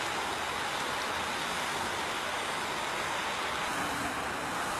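Steady, even rushing noise of a storm outdoors, with no distinct events.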